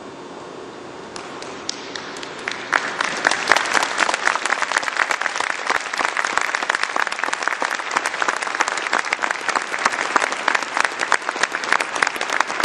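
Audience applause: a few scattered claps about a second in, building into full, steady clapping by about three seconds in.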